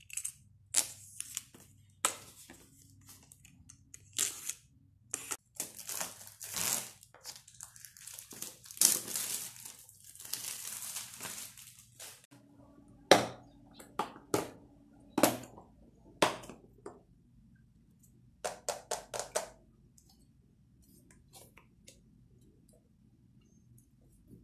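Clear plastic bag and wrapping crinkling and rustling as plastic food containers are unwrapped and handled, mixed with sharp clicks and knocks of the hard plastic containers and their clip-on lids. Later comes a quick run of about five clicks.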